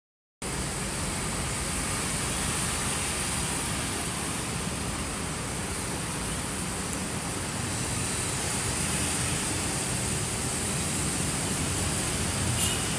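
Steady traffic noise from a busy multi-lane road below, with motorbikes and cars passing, and a brief high-pitched sound near the end.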